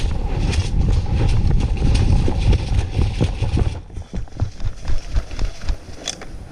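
Movement and handling noise on a body-worn action camera: a low rumble full of irregular knocks, thinning out about four seconds in to a run of separate thumps.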